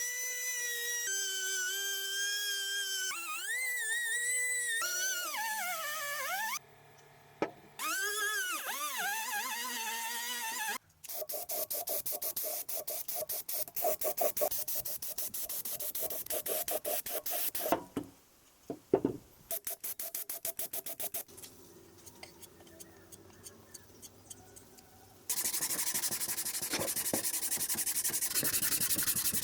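Workshop tool sounds on a motorcycle's steel fuel tank: a small high-speed power tool whining, its pitch rising and falling with load, for the first ten seconds or so. Then rapid back-and-forth scraping or sanding strokes with short breaks, and a steady sanding hiss near the end.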